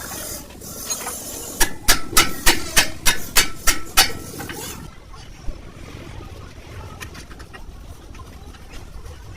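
Hammer blows on steel during work on a Tata truck's lift-axle kingpin and knuckle: about ten quick, ringing strikes, roughly four a second, starting about a second and a half in and stopping around four seconds in. Low steady background noise fills the rest.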